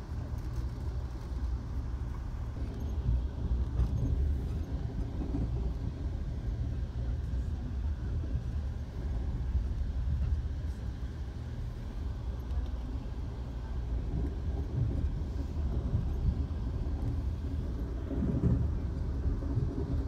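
Steady low rumble of an Amtrak Coast Starlight passenger train running at speed, heard from inside the passenger car, with a few faint clicks.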